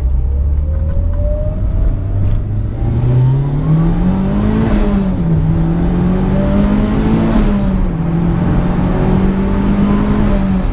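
Mitsubishi Evo 8's turbocharged 2.0-litre four-cylinder engine accelerating hard through the gears. Its note rises in pitch, drops at two gear changes about five and eight seconds in, then holds steady at cruising speed.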